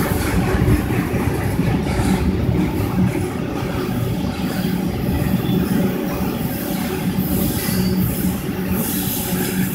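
Freight train of autorack cars rolling past at close range: a steady rumble and rattle of steel wheels on rail, with brief high-pitched wheel squeal in the latter part.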